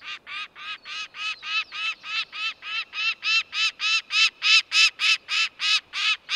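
Peregrine falcon giving a long run of repeated calls, about three a second, growing louder toward the end.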